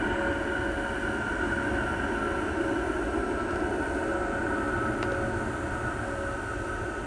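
Military jet aircraft flying overhead: a steady rumble with a high engine whine, slowly fading.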